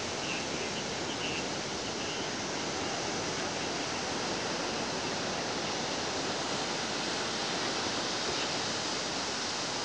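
Steady, even outdoor noise with no distinct events, and a few faint short high chirps in the first two seconds.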